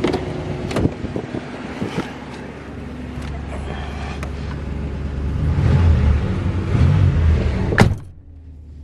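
1984 Pontiac Parisienne wagon idling, with wind rushing on the microphone that grows louder in the second half. Near the end a car door shuts with a sharp thud, and the sound drops.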